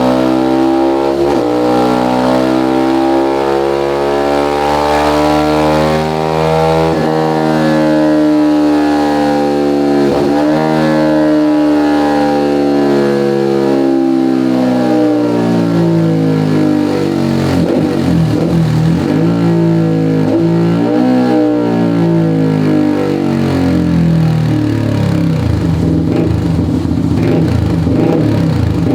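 Motorcycle engine revving hard through a 3Tech EvoX aftermarket exhaust. The note climbs and drops sharply three times in the first ten seconds, holds high, then falls away and settles into a lower, uneven running note.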